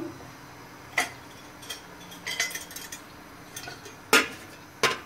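Stainless steel pressure cooker handled on a gas hob: a metal knock as the pot is set on the grate, a few light clinks, then two sharp clacks near the end as the lid is lowered onto the rim.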